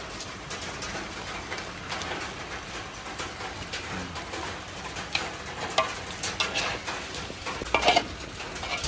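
Metal spatula and spoon scraping and clinking against a large wok as chicken in thick chili paste is stirred and turned, with the clinks coming faster and louder in the second half and the loudest near the end.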